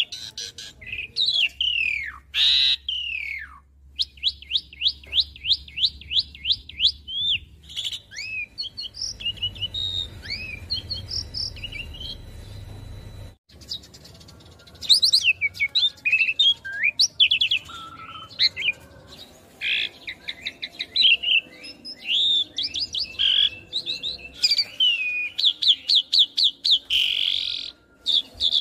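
Asian pied starling singing a varied song of whistles and chirps, with downward-sliding whistles and fast runs of repeated notes. The song breaks off suddenly about 13 seconds in, then starts up again.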